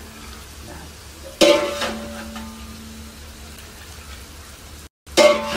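A metal jug clanks against the rim of a large aluminium cooking pot, ringing briefly, twice: about a second and a half in and again near the end. Between the clanks, meat broth is scooped and poured into the pot of saloona stew.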